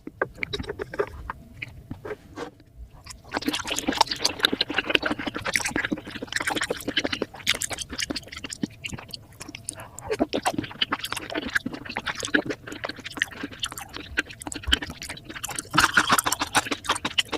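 Close-miked wet chewing and mouth smacks of someone eating sushi: a dense run of small wet clicks and squelches that picks up about three seconds in.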